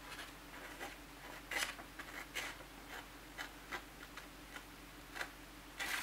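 Short, irregular scraping strokes of a TRUEBLADE pocket knife's 420 stainless steel blade shaving the top edge of a hand-held sheet of printer paper. This is a paper-shaving sharpness test of the out-of-the-box edge, which takes off a little of the paper.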